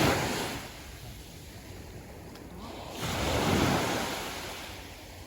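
Sea waves breaking on the beach: one surge fading away in the first second, then another building about three seconds in and washing back out.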